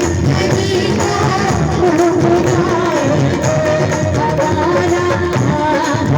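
Hindi devotional bhajan music: a melody with singing over a steady rhythm of hand percussion.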